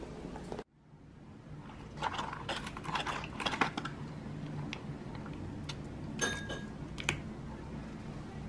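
Light crinkling and clicking from a cardboard box and foil stick pouches of red ginseng being handled on a hard table, with two sharper taps about six and seven seconds in, over a low steady hum.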